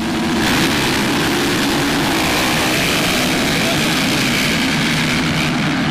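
A large pack of motocross bikes launching off the starting gate together at full throttle, their engines merging into one loud, steady drone that builds over the first half-second.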